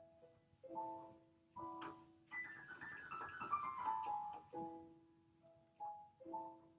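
Solo piano playing a slow improvisation: spaced chords that ring and die away over a repeated low note, with a falling run of notes in the middle.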